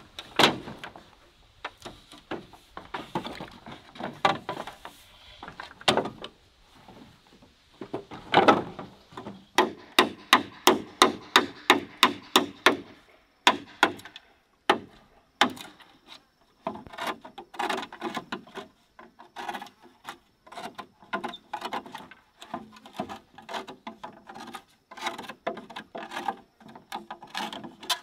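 Bamboo poles knocking and clattering as they are handled and worked on a bamboo raft, with scraping between the knocks and a run of quick, even strikes about halfway through.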